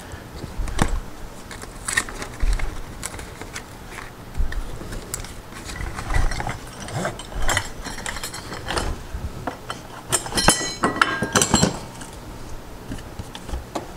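Metal parts of a Hubbell Raco ceiling fan brace kit being unpacked: the kit's box handled, and the steel brace bar, bracket and metal box clicking, clinking and rattling as they are pulled out and set down on a wooden board, with a flurry of metal clinks about ten seconds in.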